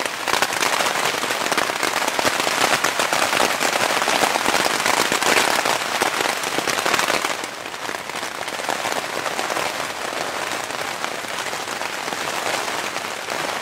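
Heavy rain pelting a tent's fabric in a strong wind, heard from inside the tent as a loud, dense crackle of drops. It gets somewhat quieter about seven seconds in.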